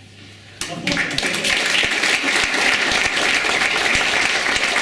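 Audience applauding, a dense crackle of many hands clapping that starts suddenly about half a second in and holds steady.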